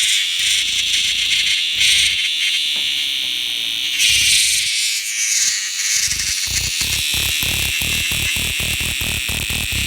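Frog calling loudly and without a break, a shrill, high call. In the last few seconds a quick run of low pulses joins in, about five a second.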